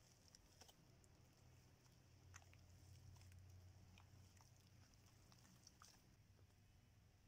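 Near silence, with a few faint, scattered ticks and clicks over a low steady hum.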